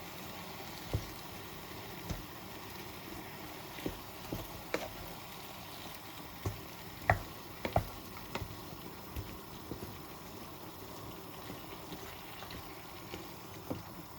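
Bolognese sauce with vegetables in a pan being stirred and coming to a bubble: a steady hiss under irregular pops and clicks.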